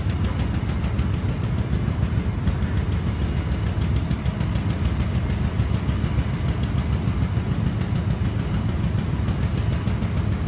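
Heavy diesel engines of mobile cranes running steadily, a low, even rumble.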